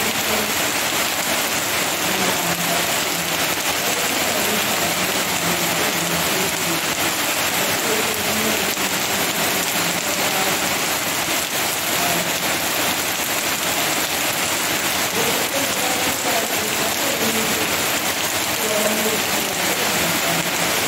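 Heavy rain pouring steadily onto banana leaves and dense foliage, a thick even hiss with no letup.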